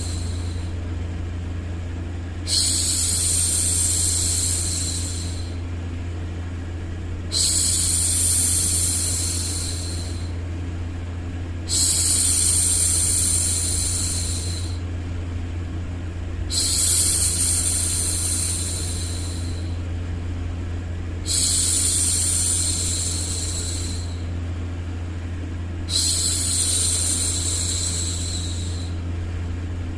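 A woman shushing a baby: a long 'shhh' repeated six times, each starting sharply and fading over two to three seconds, about every four to five seconds. Under it runs a steady, even low white-noise hum.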